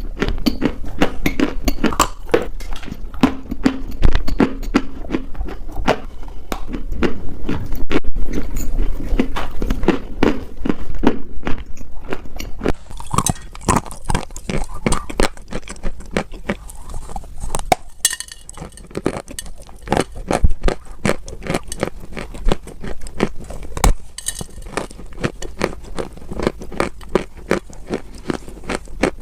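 Dry clay being crunched and crumbled, a dense, continuous run of crisp crackling crunches.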